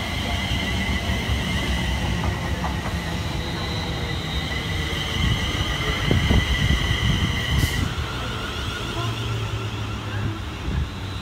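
Class 350 Desiro electric multiple unit running past along the platform: a steady low rumble of wheels on rail under a high electric whine that holds two steady pitches and then shifts to different ones about eight seconds in.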